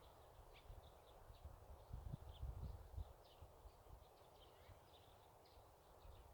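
Faint countryside ambience: small birds chirping in short high calls throughout, with a few low rumbles now and then.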